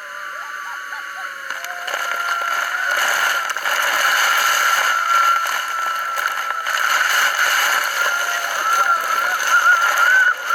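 Loud, steady rush of falling water and spray at the Iguazu Falls, swelling about two seconds in, with a wavering high-pitched tone on top.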